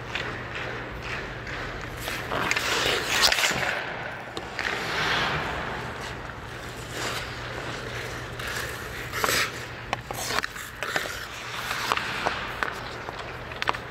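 Ice hockey skates scraping and carving on the ice, with a few sharp clacks of a stick on the puck in the second half and a steady low hum underneath.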